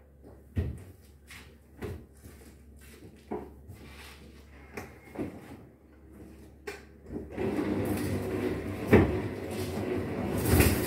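Knocks and handling sounds at a front-loading washing machine: a string of separate sharp knocks and clicks, then a louder stretch of continuous clattering and rubbing over the last few seconds, with two heavier knocks in it.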